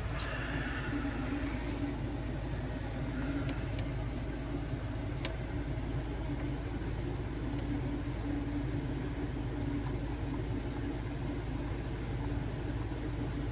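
Steady hum of a running desktop PC's fans, with a couple of faint clicks.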